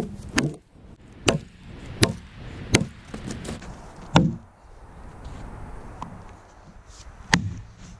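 Double-bit axe chopping into a log, about six sharp strikes, the first four roughly a second apart, then a pause of about three seconds before the last.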